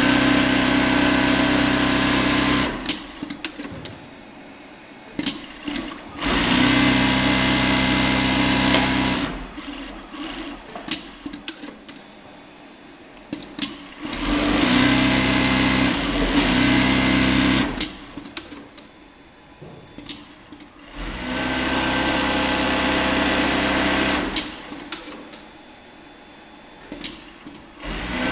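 Pfaff 838-900 free-arm zig-zag industrial sewing machine sewing at speed in four runs of about three to four seconds each. Between the runs it stops, and there are short clicks as the fabric is handled and repositioned.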